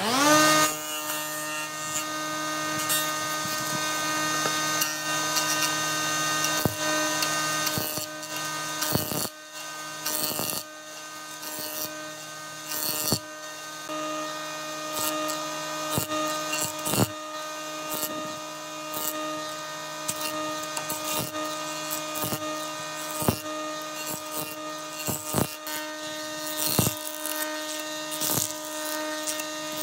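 Woodworking jointer (surface planer) motor spinning up right at the start, then running with a steady whine. Over it come repeated irregular bursts of cutting noise as a round log is pushed across the spinning cutterhead to shave flat faces along it.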